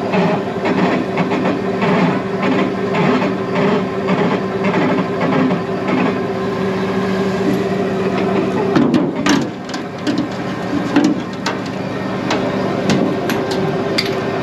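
A prawn boat's hydraulic trap hauler runs with a steady hum and rattle as it pulls in the trap line. About nine seconds in, the hum's upper tone breaks off and the level dips, followed by a run of sharp clicks and knocks as a prawn trap is handled at the rail.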